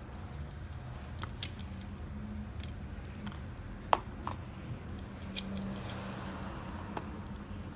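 Small metal parts of a Baldwin mortise lock clicking and clinking as it is reassembled by hand, with one sharp click a little before halfway, over a steady low hum.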